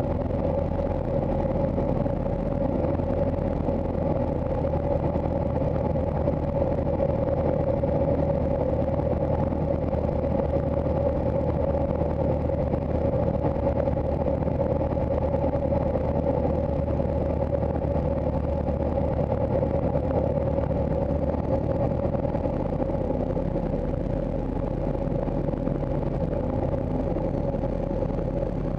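Van's RV-6 light aircraft's piston engine and propeller running steadily, a constant drone heard from inside the cockpit. The note gets a little quieter near the end.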